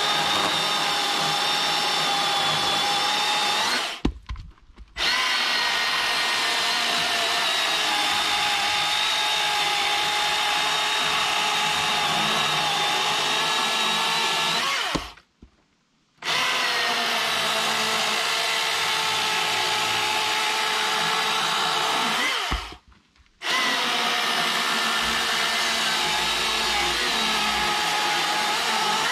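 Milwaukee M18 battery chainsaw running at full speed and cutting through knot-free hemlock: a steady high motor whine with chain noise, cutting fast without bogging down. It breaks off abruptly for a moment three times, about four, fifteen and twenty-three seconds in.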